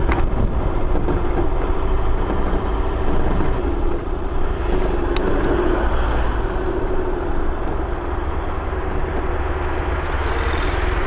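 Mercedes G400 CDI's V8 turbodiesel driving on a gravel track, picked up from its bonnet: steady engine and tyre-on-gravel noise. A dirt bike passes close by near the end.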